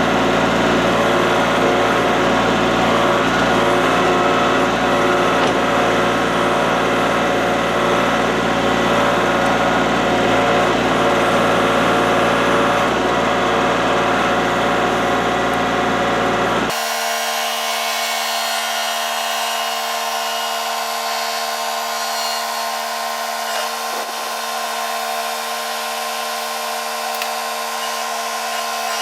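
Kubota L3301 tractor's three-cylinder diesel engine running steadily during backhoe digging. About two-thirds of the way through the sound changes abruptly to a thinner one with the deep rumble gone.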